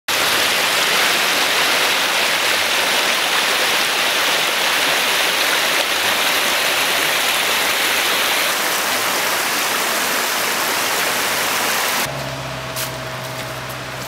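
Shallow creek water running and splashing over rocks, a steady rushing. About twelve seconds in it cuts off to a much quieter background with a low steady hum.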